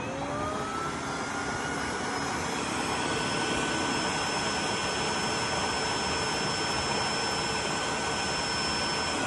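Tineco cordless wet-dry vacuum mop running its self-cleaning cycle on its dock. The suction motor spins up with a rising whine in the first second, then runs steadily, with a high whine joining a couple of seconds in.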